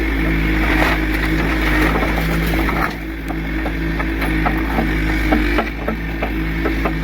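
A heavy machine's engine running steadily, with many short clicks and knocks scattered over it. The engine sound dips briefly about three seconds in and again later on.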